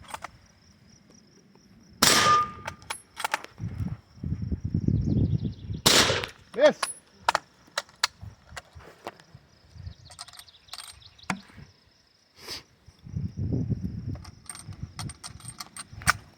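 Two .30-40 Krag–Jørgensen bolt-action rifle shots about four seconds apart, the first followed by a short ringing tone. The second shot misses its target. Smaller clicks and knocks follow later.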